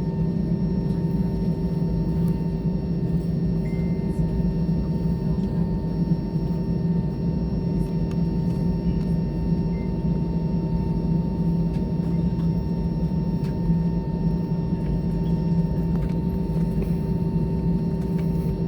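Steady drone inside an airliner cabin on the ground after landing: a low rumble with several constant humming tones from the engines and air systems.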